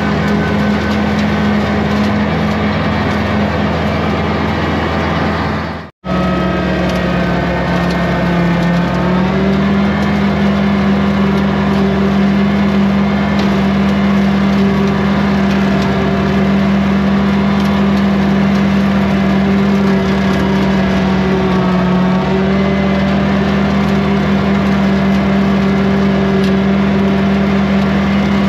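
Kubota compact tractor's diesel engine running steadily under load, with a rotary brush cutter turning behind it. The sound drops out for an instant about six seconds in, then resumes at a slightly different engine pitch.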